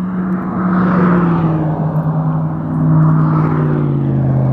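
A steady engine drone whose pitch sags slowly and evenly, under a rushing noise that swells and fades.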